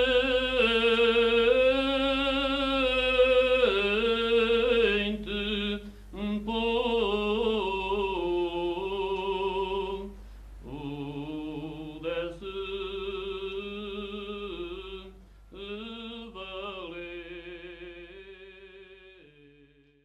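Alentejo choral group singing cante alentejano unaccompanied: long, wavering held notes in phrases separated by short breath pauses. The singing fades out near the end.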